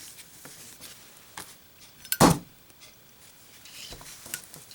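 A lit Zippo 1935 replica lighter dropped onto a hard surface, landing with a single sharp knock about two seconds in, with a few faint clicks of handling around it.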